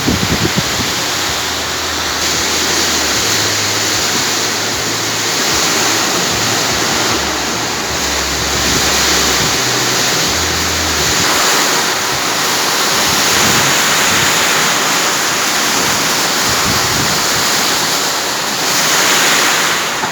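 Heavy rain and strong wind, a loud steady rushing that swells and eases now and then, with the wind buffeting the microphone.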